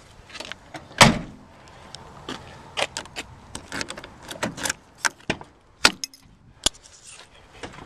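Clicks, knocks and clunks from a vehicle's doors and interior being handled, with one heavy thump about a second in and a sharp knock near the end.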